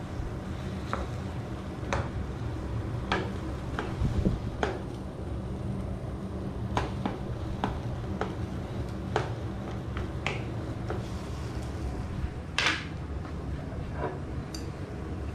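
A wooden spatula scraping and knocking against a small metal wok while stirring scrambled eggs, in irregular clicks about every half second to second over a steady low hum. Near the end there is one louder clatter.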